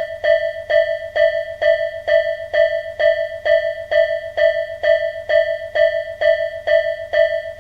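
Japanese level crossing warning bell ringing "kan-kan", a clear ringing tone struck evenly about twice a second, each strike fading quickly.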